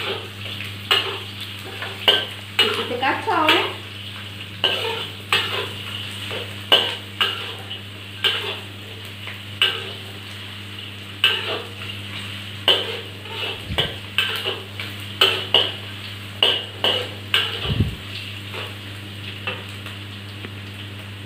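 Metal spatula scraping and knocking against a steel wok in repeated strokes, every half second to a second, as onion, garlic and ginger sizzle in hot oil.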